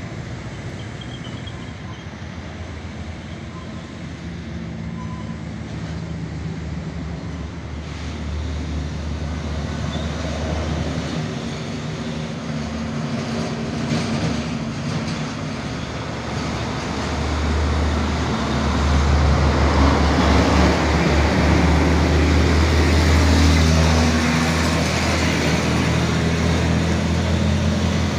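Heavy trucks' diesel engines running as they pull through the bend and pass close by, a low engine drone with tyre and road noise. It grows louder a little past halfway.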